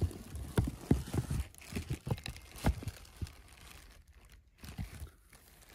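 Handling noise of a phone camera being moved and propped up: fabric rubbing against the microphone and a run of soft knocks and rustles that die down after about three and a half seconds, with a few faint knocks near the end.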